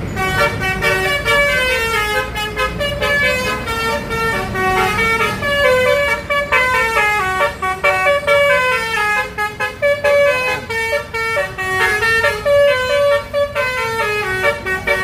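Indonesian 'telolet' musical bus horns (Basuri type) playing a fast tune of short stepped notes, over a low engine rumble.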